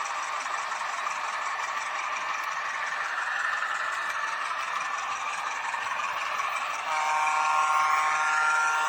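H0 scale model diesel locomotive, an Alco 313, running along the track with a steady mid-to-high pitched running noise. About seven seconds in it grows louder and a steady tone of several notes joins.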